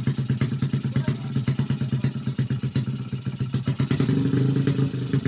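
Honda Supra X four-stroke single, bored up from 100cc to 130cc for drag racing, idling with a choppy, lumpy pulse. About four seconds in it briefly runs louder and more evenly, then drops back.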